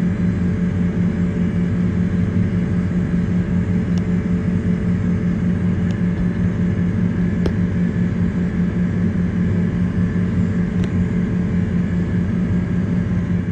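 John Deere tractor engine running steadily under load, a low even drone, as it pulls a disk chisel through corn stubble. There are a few faint ticks over it.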